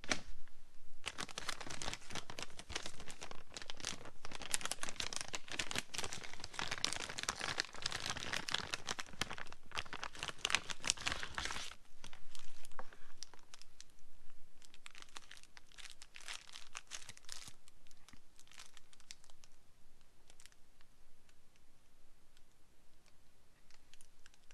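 Thin clear plastic bag crinkling as sunglasses are worked out of it: dense and continuous for about the first eleven seconds, then lighter, scattered crinkles that fade toward the end.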